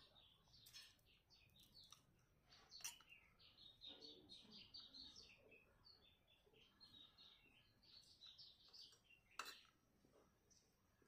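Faint birds chirping in quick runs of short high notes, with a few sharp clicks, the loudest about three seconds in and near the end.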